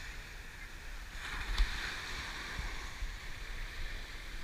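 Ocean surf washing up the beach, a hiss that swells about a second in, over a low rumble. One sharp click about a second and a half in is the loudest moment.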